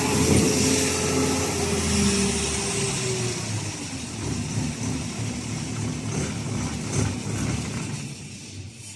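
A diesel engine running, its pitch dropping about three seconds in and then settling into an uneven rumble that fades out near the end.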